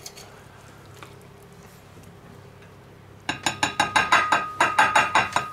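A metal utensil clinking rapidly against a ceramic plate, starting about three seconds in: a quick run of about five sharp clinks a second, with the plate ringing under them.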